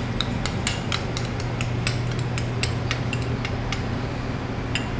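Metal spoon scraping and tapping against the inside of a small glass bowl as thick sauce is scraped out, a run of irregular light clinks. A steady low hum sits underneath.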